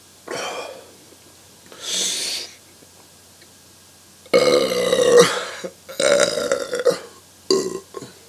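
A man belching loudly from chugging beer: two short breathy sounds first, then a long belch falling in pitch about four seconds in, a second belch about six seconds in, and a short one near the end.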